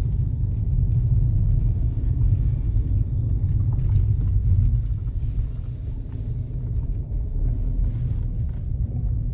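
Low, steady rumble of a car driving, heard from inside the cabin.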